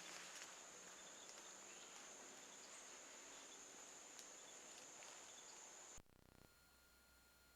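Faint, steady, high-pitched drone of insects, such as crickets or katydids, that cuts off suddenly about six seconds in, leaving a quieter faint hum.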